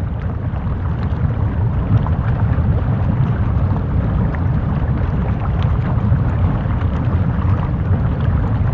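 Lava flow: a steady low rumble with faint scattered crackles, swelling during the first two seconds and then holding level.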